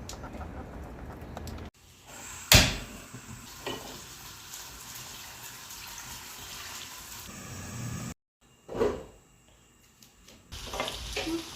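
Household handling sounds over a steady low hiss: one sharp, loud knock about two and a half seconds in, a lighter knock a second later, and a short swell of sound near the end, with the background cutting in and out abruptly.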